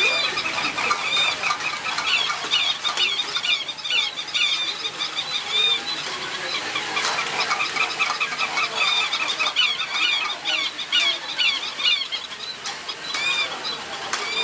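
Many small electronic toy animals chirping and squeaking at once: a dense, steady chatter of short high chirps overlapping one another.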